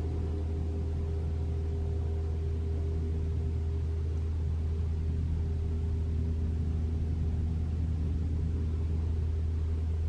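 Toyota RAV4 Prime's heat pump humming steadily, heard from inside the cabin as a low, even hum with a few faint steady tones above it. It is pretty loud but free of the abnormal heat pump noise the owner is trying to reproduce.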